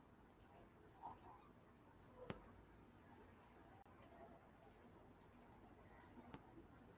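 Near silence with a series of faint, irregular clicks from a computer mouse, the sharpest one a little over two seconds in.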